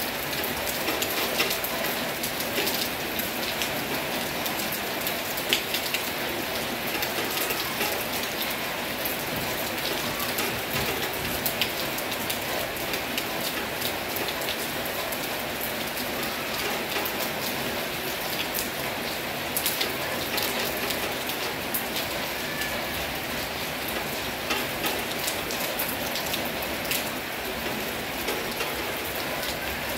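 Heavy rain falling steadily, with the sharp taps of many close drops striking a surface throughout.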